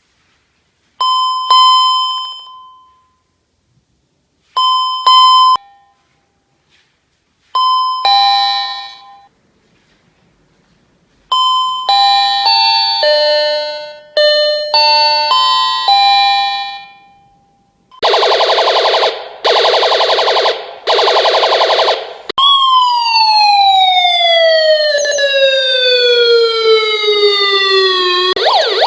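A run of electronic alert tones. First come three short two-note ding-dong chimes, then longer multi-note chime tunes. Next are three harsh buzzer blasts, then one long tone gliding steadily downward in pitch, and near the end a warbling siren tone begins.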